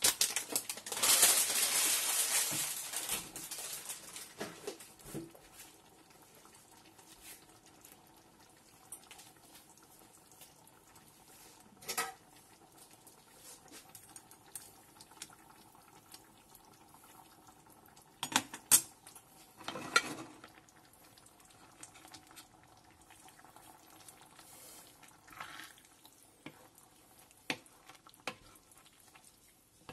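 A pot of water with tagliatelle cooking on the stove, a loud hiss in the first few seconds that dies away. Then a quiet stretch with a few short knocks and scrapes of a plastic pasta server and a wooden spoon against the pots as the pasta is stirred.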